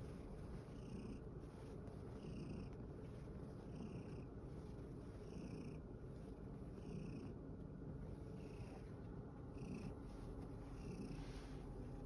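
Domestic cat purring steadily at close range, in a regular rhythm of about one cycle every second and a half.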